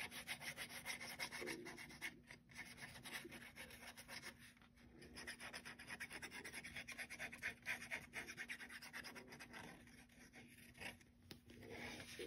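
Faint rubbing and scratching of fingers pressing a freshly glued paper tab against the side of a cardstock box, over a faint steady hum.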